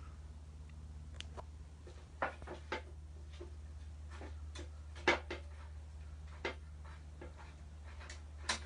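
Scattered, irregular clicks and knocks of hand tools and metal parts being handled while a car's bell housing is being unbolted, over a steady low hum.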